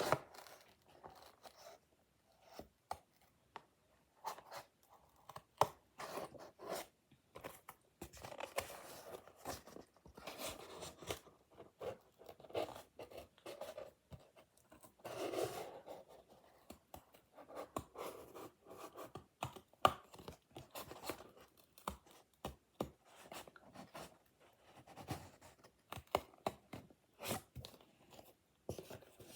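Scissors cutting paper and card, with irregular snips, rustling and scraping as the paper is handled.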